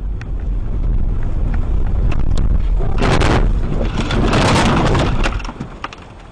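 A car on the move with a steady low rumble of engine and road noise. Two loud rushing swells come about three and four-and-a-half seconds in, with a few sharp clicks, and then the sound drops away near the end.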